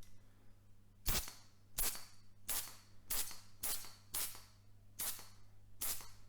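A sprayer giving eight short hissing spray bursts, each about a third of a second, in an uneven series less than a second apart, starting about a second in.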